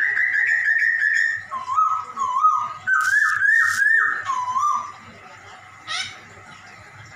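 Chinese hwamei (Poksay Hongkong) singing clear whistled notes: a wavering held phrase, then a run of short looping notes that dip and rise, and one brief note near the end.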